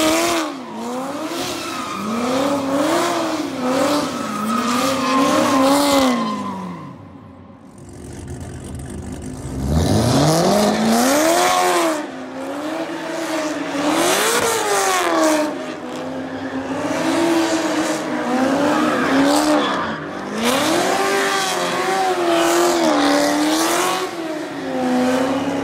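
C7 Corvette's V8 revving up and down again and again as the car spins donuts, its rear tires squealing. About seven seconds in the sound drops away briefly, then the engine climbs from low revs and goes on rising and falling.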